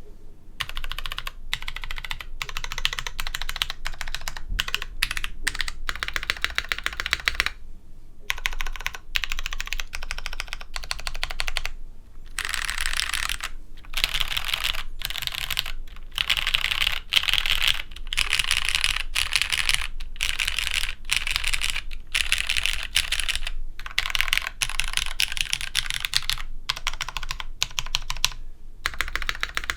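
Typing on a CM Storm Quickfire TK mechanical keyboard fitted with Cherry MX Brown switches on a stainless steel half plate, with GMK keycaps and a shelf-liner-dampened case. Fast, continuous keystroke clatter in runs of a few seconds, broken by brief pauses.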